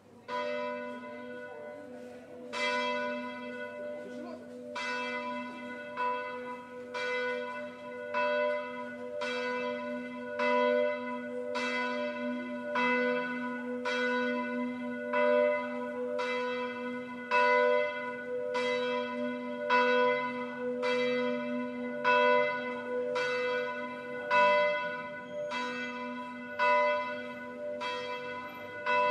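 A single church bell tolling, struck about once a second at the same pitch, its deep hum ringing on between strikes. After the first strike there is a longer pause of about two and a half seconds before the steady strokes begin.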